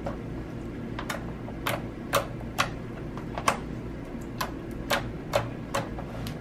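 Pink slime being poked and pressed with the fingertips, giving about a dozen sharp, irregular clicks and pops as air pockets in it burst.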